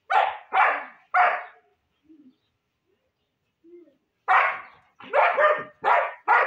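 German Shepherd dogs barking: three barks in quick succession, a pause of nearly three seconds, then a run of repeated barks from about four seconds in.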